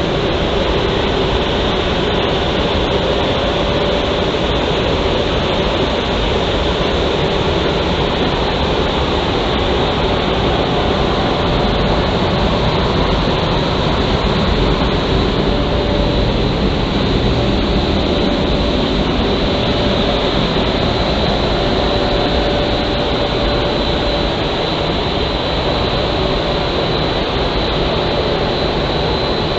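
Triulzi SY2500 horizontal glass washing machine running: a loud, steady rushing machine noise with a faint hum in it.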